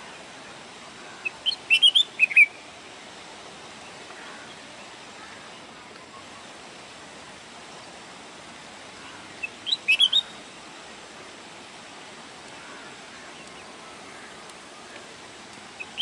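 Red-whiskered bulbul singing: two short phrases of quick whistled notes about eight seconds apart, with a third starting at the very end, over a steady background hiss.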